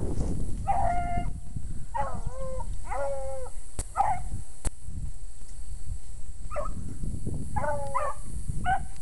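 Beagles baying while running a rabbit: a string of about seven separate bays, some drawn out into short howls, coming at irregular intervals.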